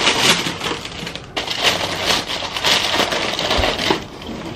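Tissue paper rustling and crinkling as it is pulled out of a shoebox, in two long surges, dying down near the end.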